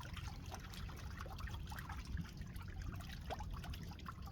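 Live mackerel crowded together in water, flapping and splashing: a patter of small, irregular splashes.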